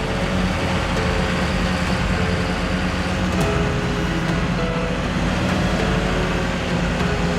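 John Deere 7930 tractor's six-cylinder diesel running steadily under load while ploughing, with a constant engine note.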